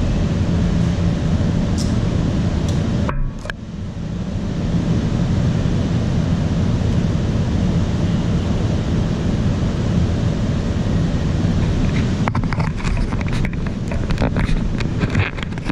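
Small 250-size quadcopter's motors and propellers running steadily, recorded by a camera on board, with wind noise on the microphone. The sound dips briefly about three seconds in, and a run of crackling clicks joins it from about twelve seconds on.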